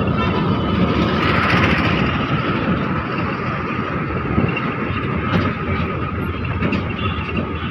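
A bus running along a city road, heard from inside the cabin: steady engine and road noise.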